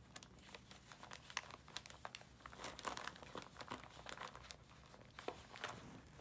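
Gift-wrapping paper crinkling in quick, irregular crackles as a longhaired dachshund noses and paws at a wrapped present.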